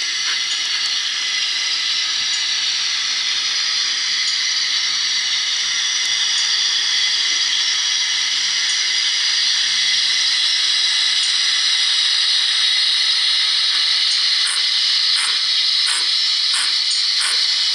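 Recorded steam-locomotive hiss from the sound decoder of a Hornby 00 gauge GWR 28xx 2-8-0 model, played through a small speaker: a steady hiss. Near the end a string of short sharp beats comes in, getting quicker.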